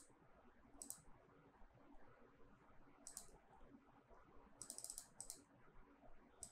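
Near silence with a handful of faint, scattered clicks from a computer mouse and keyboard.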